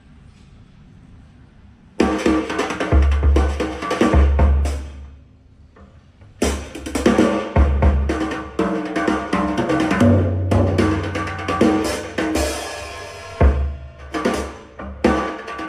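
Drum-heavy music played through a home-built speaker in a sound test, with deep bass notes under drums and percussion. It starts suddenly about two seconds in and dips briefly around the middle.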